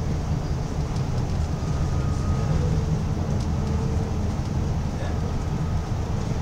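Inside a bus travelling at speed: a steady low rumble of engine and road noise.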